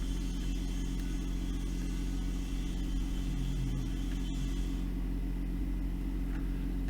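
Steady low electrical hum, a stack of even low tones with a faint hiss over it, unchanging throughout.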